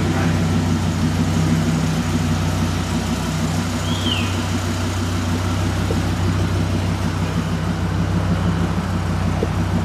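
Dodge Viper RT/10's 8.0-litre V10 idling steadily as the car creeps out of the shop at walking pace, with no revving. A brief high chirp sounds about four seconds in.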